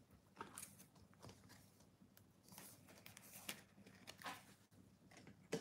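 Faint rustling and light clicks of trading cards and their plastic holders being handled, with one sharper click near the end.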